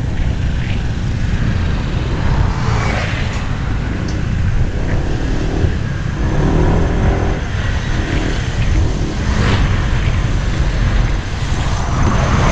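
Wind and road noise from riding a motor scooter in traffic: a heavy, steady rumble. Passing vehicles swish by about three seconds in, near ten seconds and near the end, and another vehicle's engine drones briefly around six to seven seconds.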